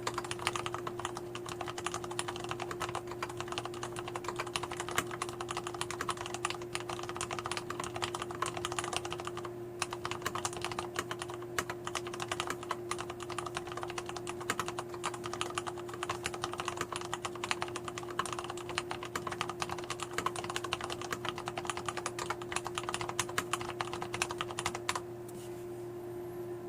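Fast, continuous typing on a Leopold 750R mechanical keyboard with lubricated Cherry MX Brown tactile switches. There is a brief pause near the ten-second mark, and the typing stops shortly before the end. A steady low hum runs underneath.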